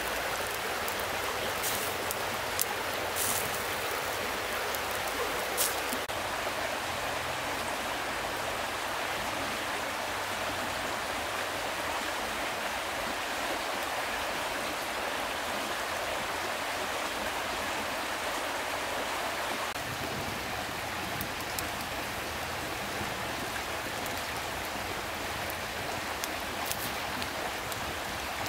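Steady rushing of a stream, with a few sharp pops from a wood campfire, mostly in the first few seconds.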